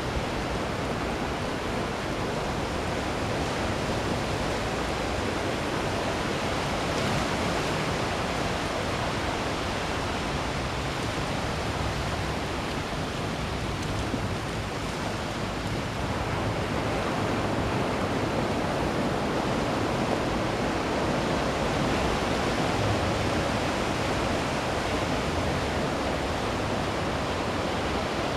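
Ocean surf washing on a beach, a continuous rushing that slowly eases and swells again.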